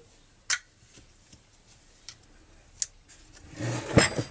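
A few faint clicks of a small screwdriver tip picking dirt out of a Partner chainsaw's crankcase. About three and a half seconds in, a scrape and a sharp knock, the loudest sound, as the chainsaw body is turned over on the workbench.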